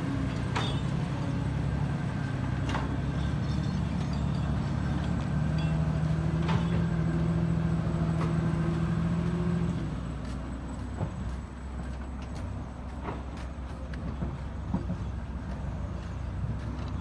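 Heavy construction machine's diesel engine running, its hum growing stronger and then dropping back about ten seconds in, with a few sharp metallic clanks.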